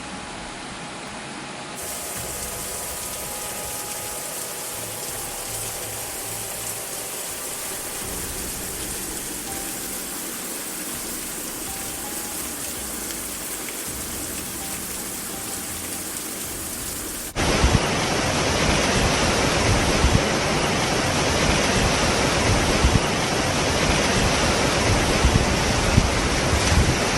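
Steady rushing-water noise from floodwater and rain, changing abruptly at two cuts and growing much louder about two-thirds of the way through.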